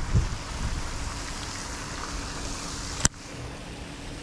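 Steady splashing hiss of a pond's spraying fountain, with low rumbles in the first second and a single sharp click about three seconds in, after which the hiss is quieter.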